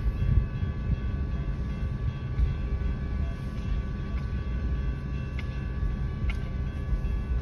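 Freight train of autorack cars rolling past a grade crossing: a steady low rumble of wheels on rail, with a few faint clicks and several steady high tones above it. Heard from inside a car stopped at the crossing.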